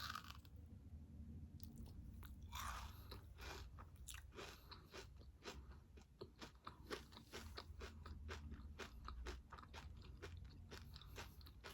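Faint close-up chewing of a Dubai chewy cookie, a mochi filled with pistachio cream and shredded kataifi pastry. A bite comes about two and a half seconds in, then a rapid run of small crunches and crackles as it is chewed.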